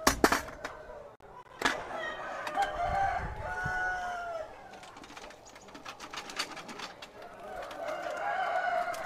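A rooster crowing, one drawn-out call that rises and falls about three seconds in. Sharp clattering knocks come right at the start and again a second and a half later.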